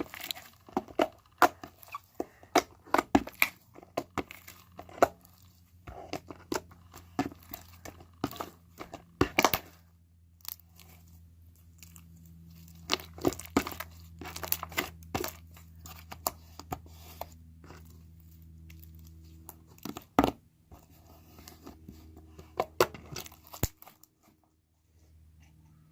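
Stiff slime being mixed by hand with water worked into it, giving irregular sticky clicks and pops that stop shortly before the end.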